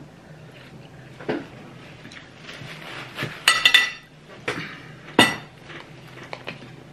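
Metal spoon and cutlery clinking and scraping against ceramic plates and serving dishes as food is dished out. There are scattered clinks, a quick run of ringing clinks about three and a half seconds in, and a sharp single clink a little after five seconds.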